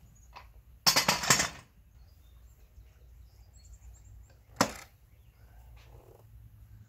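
A metal motorcycle rear paddock stand being moved on a concrete driveway: a scraping, clattering rattle lasting under a second, then a single sharp knock a few seconds later.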